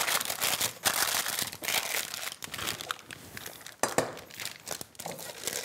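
Baking paper being crumpled and pressed into a springform cake tin to line it: a run of irregular paper crinkling and crackling with a few sharper crackles.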